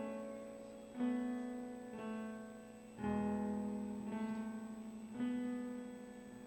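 Soft, slow piano-sounding keyboard music: sustained chords struck every second or two, each fading away before the next.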